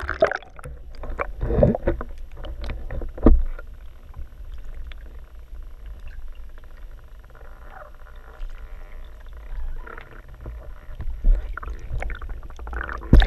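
Pool water heard through a GoPro's waterproof housing while it is submerged: a muffled low rumble with scattered clicks and bubbling. A louder burst of splashing comes right at the end.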